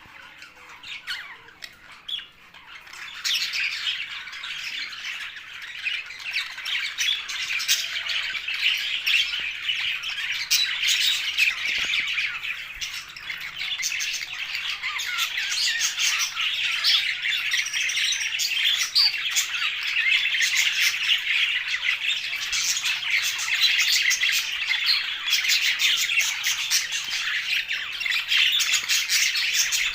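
A flock of budgerigars, English exhibition budgies among them, chattering and squawking together in a dense, unbroken stream of chirps. The chatter swells about three seconds in and stays busy.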